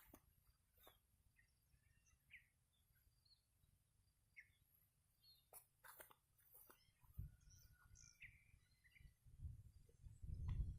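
Near silence with a few faint, short bird chirps, then a low rumble of wind on the microphone coming in about seven seconds in and growing louder near the end.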